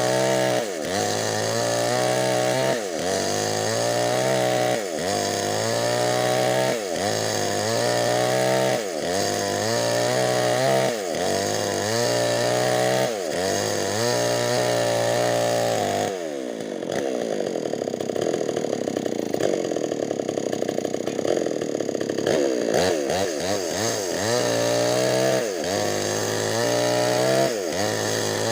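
Nixon two-stroke chainsaw with a 25-inch bar ripping a Medang log lengthwise. Its engine pitch dips and recovers about once a second as the chain loads in the cut. About two-thirds through, the engine sags to a lower, steadier pitch under heavy load for several seconds, then picks back up.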